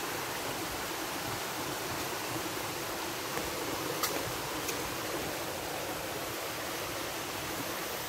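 Steady rushing of a forest stream flowing over rocks, with a couple of faint ticks about four seconds in.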